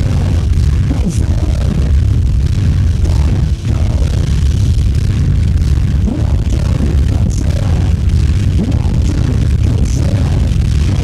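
Industrial noise music from a cassette recording: a dense, loud, distorted low rumble with a harsh noisy hiss above it, faint wavering tones and occasional crackles.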